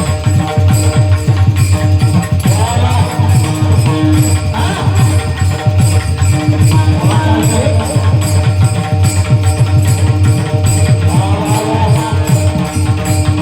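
Devotional music: dense hand-drum strokes and jingling percussion over steady held tones, with a voice singing short phrases four times.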